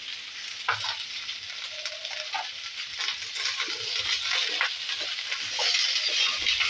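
Mixed vegetables lightly frying in oil in a kadai, sizzling steadily while a spatula stirs and scrapes them around the pan. The sizzle grows louder about halfway through.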